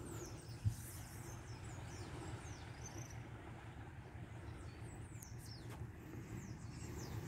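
Small birds chirping and whistling faintly, short high notes scattered throughout, over a steady low outdoor rumble. A single brief thump under a second in.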